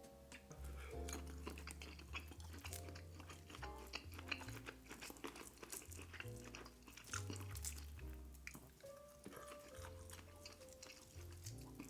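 Soft background music with a steady bass line under close-miked eating sounds: wet smacking, chewing and small crunches of seafood and shell.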